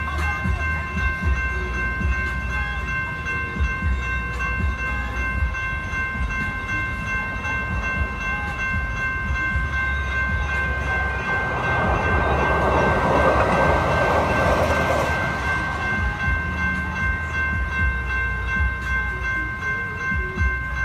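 Electronic crossing bells (General Signals Type 2) ringing steadily as one unbroken multi-tone ring, over a low traffic rumble. About eleven seconds in, a rushing noise swells and fades over some four seconds as a light rail train passes the crossing.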